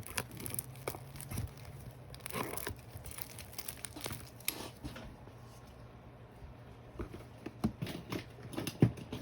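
Packaging on a cardboard box being picked at and peeled: crinkling and crackling with scattered small clicks, quieter for a couple of seconds in the middle.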